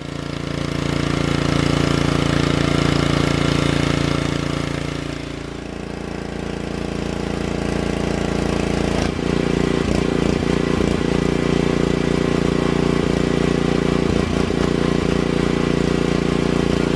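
Small gasoline engine of a pressure washer running steadily. About five seconds in its sound dips and changes pitch, then it settles back into a steady run.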